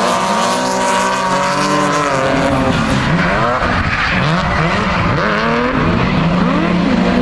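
Drift car engine held at high revs, then from about three seconds in the revs rise and fall quickly again and again as the throttle is worked through a drift, with tyre skidding noise.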